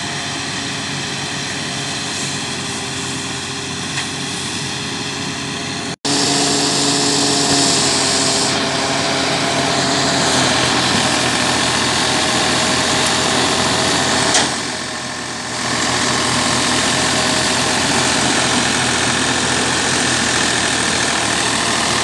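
Engine-driven rice thresher running steadily as paddy bundles are fed in, a continuous mechanical hum and whir. The sound cuts out for an instant about six seconds in and comes back louder.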